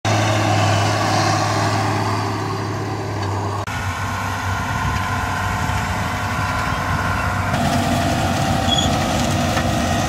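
John Deere farm tractor diesel engines running steadily while working a field, one tractor pulling a four-row corn planter. The sound changes abruptly about a third of the way in and again about three quarters of the way in, where one shot of a tractor gives way to another.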